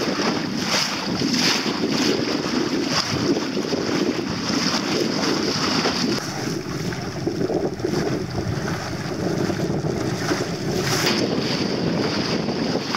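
Wind buffeting the microphone over water rushing and splashing along the hull of a small sailing dinghy under way, steady throughout with a few brief louder gusts or splashes.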